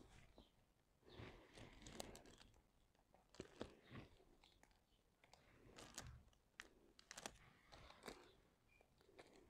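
Faint rustling and crinkling of the clear plastic cover sheet on a diamond painting canvas, with scattered light clicks as it is handled.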